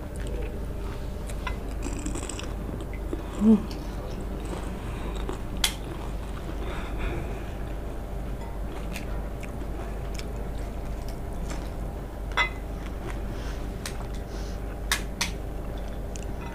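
Eating sounds of fuchka (pani puri): scattered crisp clicks and crunches as the hollow fried shells are cracked open with the fingers and chewed, with a short vocal sound about three and a half seconds in. A steady low hum lies under it all.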